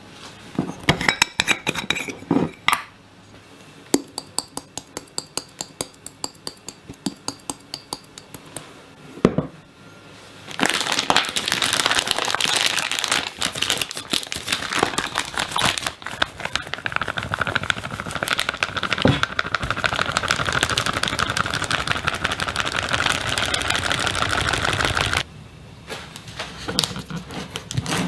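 Quick, regular light taps and clicks, ending in a single knock. Then a plastic bag crinkles steadily for about fifteen seconds as it is handled, and the crinkling stops abruptly. A few faint clicks from a plastic tub lid follow.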